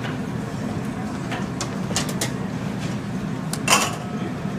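Clinks and clatter of serving utensils, plates and metal steam-table pans at a cafeteria serving line: a few sharp clicks scattered through, the loudest near the end, over a steady low hum.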